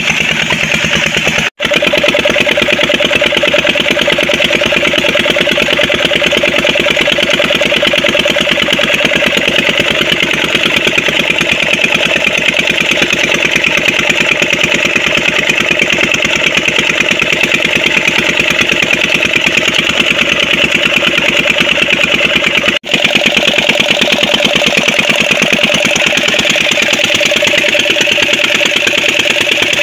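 Old 16 hp Petter diesel engine running steadily while it drives a tubewell pump by a flat belt. The sound breaks off for an instant twice, once near the start and again about three-quarters of the way through.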